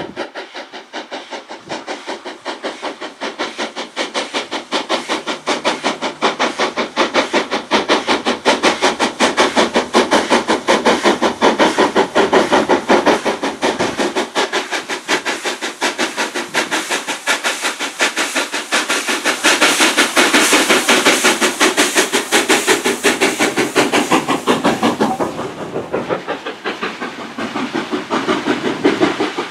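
Steam locomotive working hard up a bank with a train of coaches: rapid, even exhaust beats, about three to four a second, with a hiss of steam. It grows louder as it comes past, loudest about two-thirds of the way through, then eases slightly as the coaches roll by.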